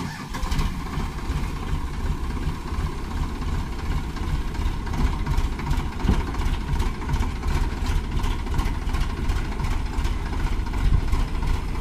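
Diesel tractor engine running steadily as it pulls a loaded trolley stuck in mud: a continuous low drone with a fast, even clatter over it.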